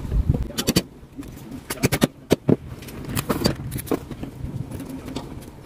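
Spiny lobster shell cracking and snapping as it is pried apart by hand: a string of sharp cracks in several clusters.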